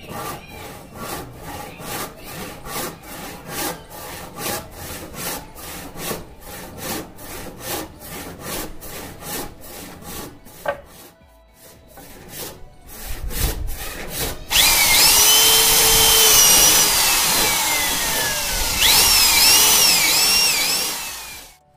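Rhythmic rasping strokes on wood, about two a second, for the first ten seconds or so. Then an electric drill starts and runs loudly, boring through a wooden batten into the door frame, its whine dipping and rising in pitch as the load changes, until it stops just before the end.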